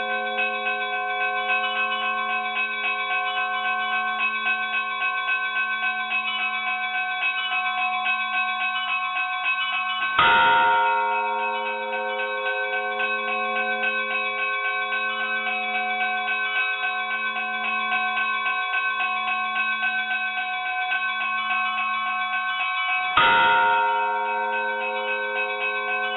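Russian Orthodox church bells ringing: smaller bells chime rapidly and without a break while the big bell is struck twice, about ten seconds in and again near the end, each stroke swelling out and fading slowly.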